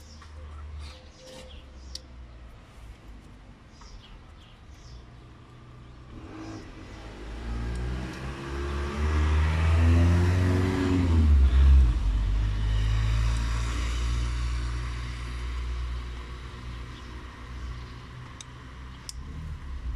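A road vehicle driving past: its engine and tyre noise swell over several seconds, the pitch dropping sharply as it goes by around the middle, then fade away.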